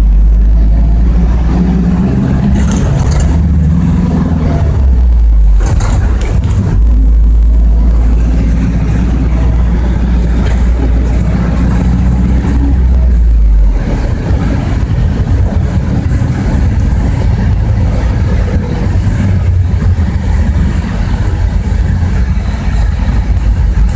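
Bogdan A09204 city bus heard from inside the cabin while driving: its diesel engine pulls with a heavy low rumble, its pitch climbing and dropping as it works through the gears. About 14 seconds in the engine eases off suddenly, leaving a lighter, rougher running sound with road noise and cabin rattle.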